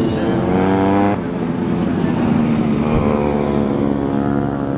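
Honda CRF150 motorcycles racing, their four-stroke single-cylinder engines revving hard. The pitch climbs, drops sharply about a second in at a gear change or roll-off, then climbs again as the bikes accelerate out of the bend.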